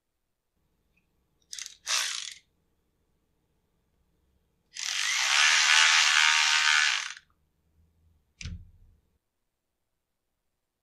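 Cordless electric ratchet running a screw in through a rubber anti-vibration buffer on a chainsaw's fuel tank mount, a steady run of about two and a half seconds a little before the middle. Two brief noises come before it, and there is a short thump near the end as the tool is set down on the bench.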